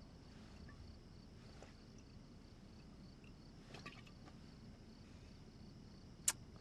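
Faint night ambience of crickets trilling steadily, with a few soft ticks. A single sharp click sounds near the end.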